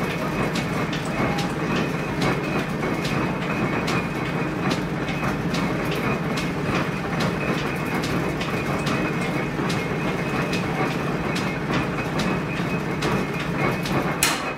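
Old silk-mill machinery running with a steady clatter and evenly spaced sharp clicks, about three a second, with one louder knock near the end.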